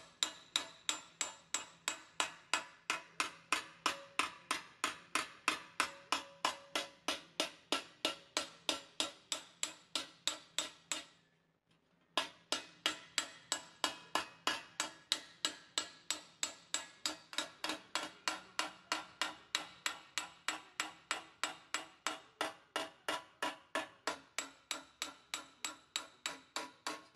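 Hand hammer striking sheet metal over a round dome anvil in a steady run of about three blows a second, planishing the formed panel smooth. The blows break off for about a second roughly eleven seconds in, then carry on.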